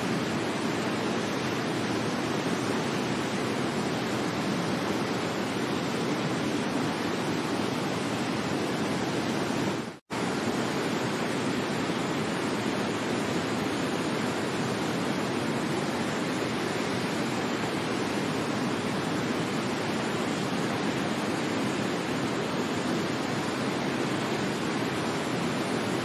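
Waterfall: a steady, even rush of falling water, cutting out for a split second about ten seconds in.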